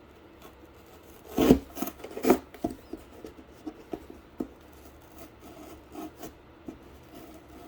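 Doubled-up cardboard being cut and handled: scraping and rubbing, with two louder knocks or rustles about one and a half and two and a half seconds in, then smaller scrapes.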